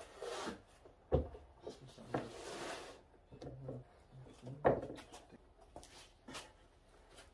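Heavy ash wood slabs being laid down and shifted on wooden battens on a workbench: a few dull wooden knocks, the loudest about a second in and just before five seconds, with scraping and shuffling between them.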